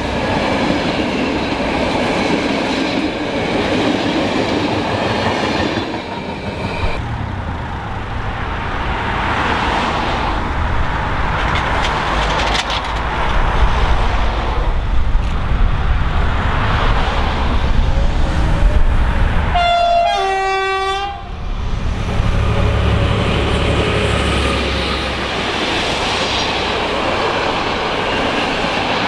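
Train coaches rolling past on the rails with a steady rumble, then an approaching train's rumble; about two-thirds of the way in, a locomotive horn sounds a short two-note blast, a higher note falling to a lower one, lasting about a second and a half.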